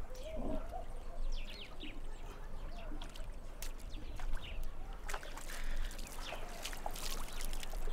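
Birds chirping at the riverside, with small splashes and trickling of water.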